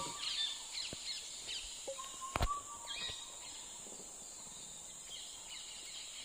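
Forest ambience: several short bird chirps in the first half over a steady high-pitched insect drone, with a single sharp click about two and a half seconds in.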